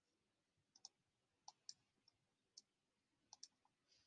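Faint computer mouse clicks, about eight of them, scattered and some in quick pairs.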